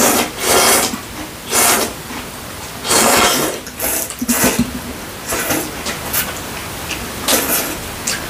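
Two people slurping mugwort knife-cut noodles (kalguksu) from soup: a series of about seven short, noisy slurps, a second or so apart.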